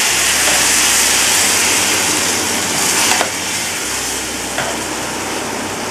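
Loud sizzling of liquid moong dal poured onto a hot tempering of oil, garlic, dried red chilies and curry leaves in a frying pan, slowly easing off as it bubbles, with a brief click about three seconds in.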